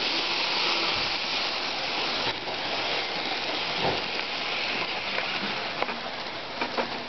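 HO-scale model train running past close by, a Bachmann Spectrum PRR K4 steam locomotive followed by its cars: a steady rushing of motor and wheels on the rails that eases off as the train goes by, with a few light clicks near the end.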